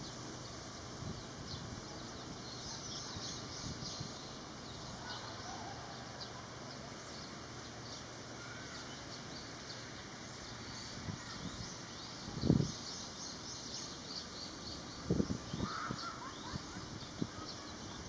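Outdoor ambience with a steady background hiss and distant birds chirping. A few short low thumps stand out; the loudest comes about twelve seconds in and another about three seconds later.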